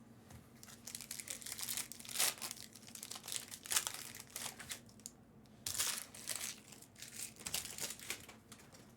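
Crinkling and tearing of a trading-card pack wrapper being opened by hand, in irregular rustling bursts with a brief pause past the middle.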